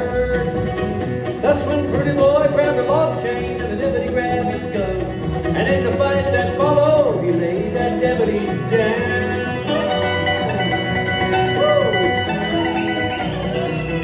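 Live country string band playing a song: a man singing over guitar and upright bass.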